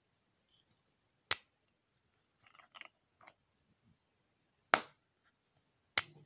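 Three sharp clicks or snaps, one about a second in, a louder one near five seconds in, and one near the end, with a patter of fainter small ticks between the first two.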